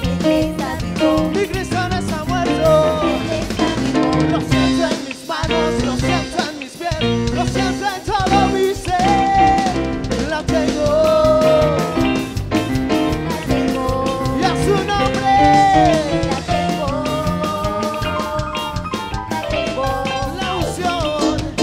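Live worship band playing a song on drum kit, electric guitar and keyboard, with voices singing over it.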